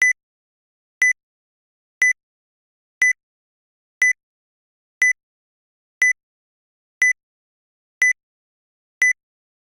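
Countdown timer sound effect beeping once a second: ten short, identical, high-pitched electronic beeps marking off a ten-second countdown.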